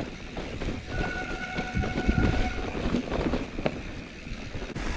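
Mountain bike brake squealing in one steady high tone for about a second and a half, starting about a second in, over a constant low rumble and rattling clatter from the ride.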